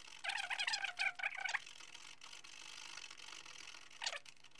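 Hand track saw cutting across a Märklin C-track piece. Its back-and-forth strokes squeal in a quick even rhythm of about three strokes a second for the first second and a half, then give way to a softer scraping hiss, with one more short stroke near the end.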